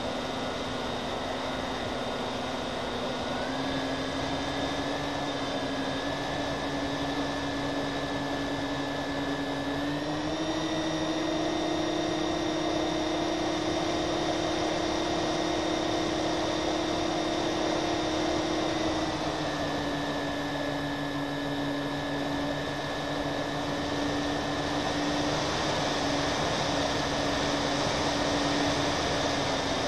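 Twin-engine FPV model airplane's motors and propellers running steadily, heard from the plane's own camera with air rushing past. The pitch steps up with more throttle a few seconds in and again about ten seconds in, then drops back a little after halfway.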